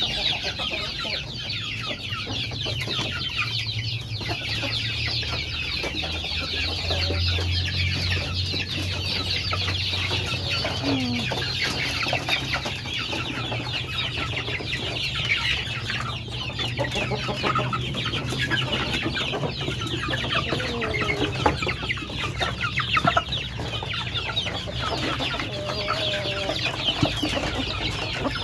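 Free-ranging native village chickens clucking in a coop, with scattered short calls over a steady, dense high-pitched chatter.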